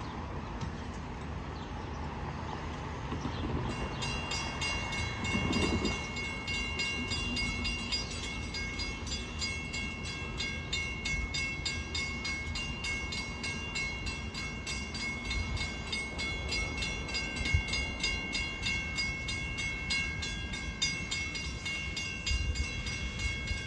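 Railroad grade-crossing warning bells start up abruptly about four seconds in and ring on in a fast, steady repeating ding, the signal that the crossing has activated for an approaching train.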